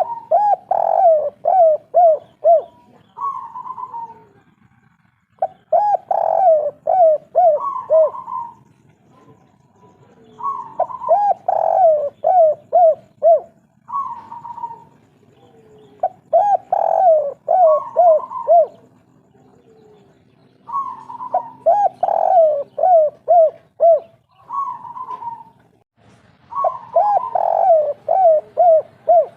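Spotted dove (tekukur/derkuku) cooing its 'kuk 3' song, a phrase of a higher opening coo followed by a quick run of short falling notes, repeated about every five seconds.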